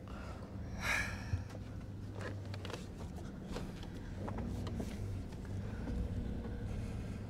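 Chevy van's engine running low and steady as it crawls up a slickrock slope, with a short loud breath close by about a second in and scattered light clicks.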